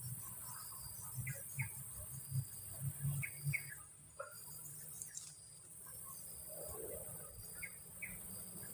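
Steady high-pitched insect chorus, with faint short chirps coming in pairs three times and soft low bumps.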